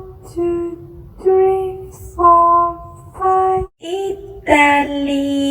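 A high voice singing a short melody of separate held notes about a second apart, ending on a longer held note near the end.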